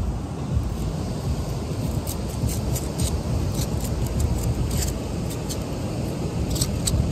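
Steady low rumble of ocean surf breaking on the beach, with a few light clicks and taps scattered through it.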